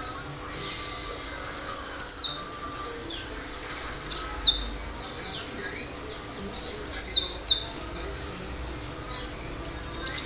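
Cinereous tit singing: short phrases of two or three sharp, high, down-slurred whistled notes. The phrases repeat roughly every two and a half to three seconds, three of them, with a fourth starting at the very end.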